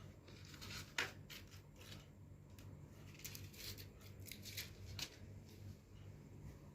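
Faint scattered clicks and rustles of small things being handled, over a low steady hum; the sharpest click comes about a second in and another near five seconds.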